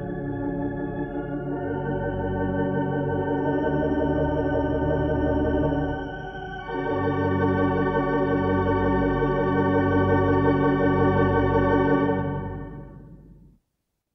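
Hilsdon 3/29 theatre pipe organ playing long held, wavering chords in two swelling phrases, with a brief dip between them about six seconds in. The sound dies away shortly before the end.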